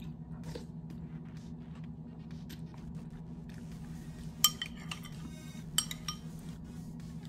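A metal spoon clinks and scrapes against a ceramic bowl of noodles, with two sharper clinks about four and a half and six seconds in, over a steady low hum.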